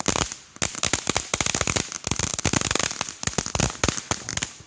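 Consumer firework going off in a rapid, dense string of sharp cracks, like a firecracker string, with a brief gap just after the start, stopping abruptly at the end.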